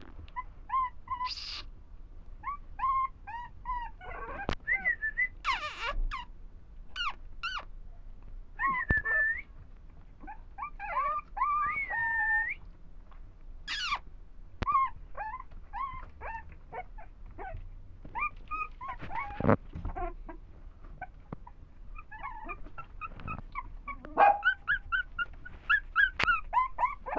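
A litter of Shih Tzu puppies whining and yipping, many short high calls overlapping, with a few sharp knocks in between. The calls grow louder and come faster near the end.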